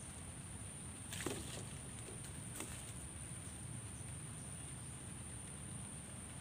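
Outdoor pond-bank ambience: a steady low rumble and a thin, steady high whine. Two brief handling noises come a little over a second in and again about two and a half seconds in, as the angler works a wire keep net at the water's edge.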